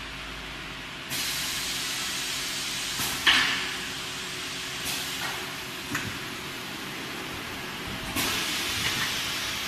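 High-frequency blister cutting machine working: a steady hiss starts suddenly about a second in, with sharp clacks over it, the loudest a little after three seconds in.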